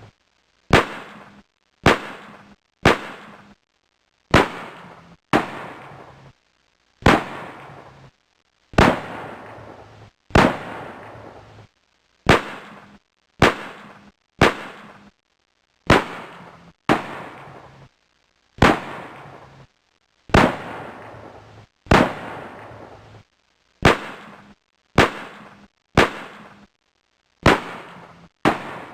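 Gunshot sound effect looped: single sharp shots, about one to one-and-a-half seconds apart, each with a short reverberant tail that cuts off abruptly to silence.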